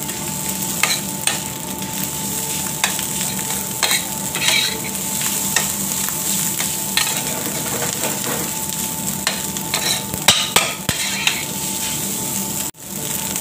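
Fried rice sizzling in a stainless-steel frying pan while a metal spoon stirs and scrapes it, with frequent clicks of the spoon against the pan over a steady hiss.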